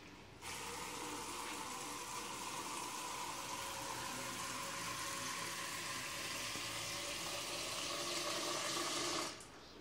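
Kitchen tap water pouring steadily into a metal pressure-cooker pot with potatoes in it, filling it. The tap is turned on about half a second in and shut off shortly before the end.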